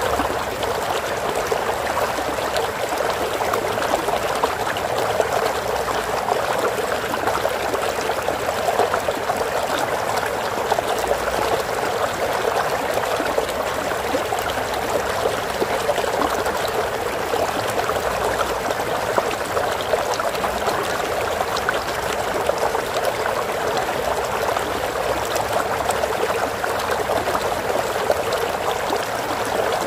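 Flowing stream water running and trickling steadily.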